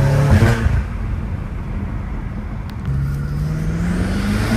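BMW M5 Competition F90's twin-turbo 4.4-litre V8, fitted with downpipes and cold air intakes, driving: the engine eases off about half a second in, then from about three seconds in the revs climb steadily as it accelerates, with a rising turbo and intake whoosh.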